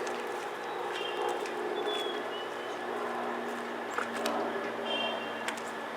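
Outdoor ambience: a steady low hum with a few short bird chirps about a second in, two seconds in and near the end.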